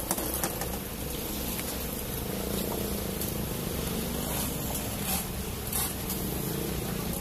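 Concrete mixer truck's diesel engine running steadily at idle, with a few short scrapes of rakes and hoes working wet concrete.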